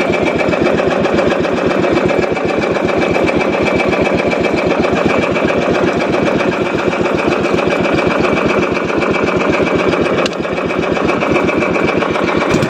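Small fishing boat's engine running steadily with a fast, even chugging beat; it dips briefly about ten seconds in.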